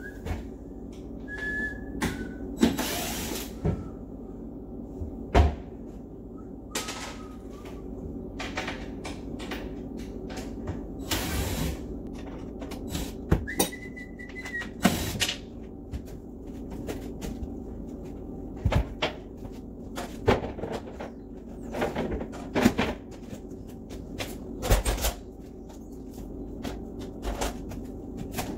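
Cordless drill backing out cabinet hinge screws in short bursts of whine, the longest lasting about a second, among sharp knocks and clatter of wooden cabinet doors being opened, lifted off and set down.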